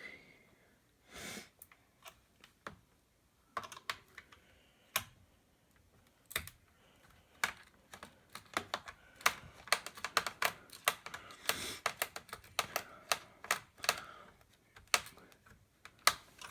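Irregular small clicks and taps of a screwdriver working screws out of a plastic laptop base, sparse at first and coming thick and fast in the second half.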